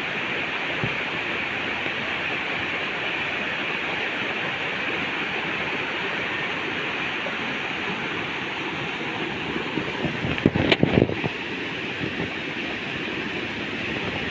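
A waterfall rushing steadily. There is a brief cluster of knocks about ten seconds in.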